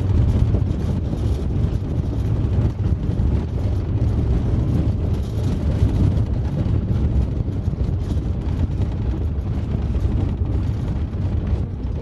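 Steady low rumble of a vehicle driving along a gravel road, heard from inside the cabin: tyres rolling on gravel over the engine's drone.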